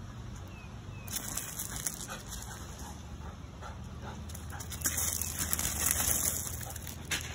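A golden retriever giving short barks and whines, with crunching on gravel that is loudest a little past the middle.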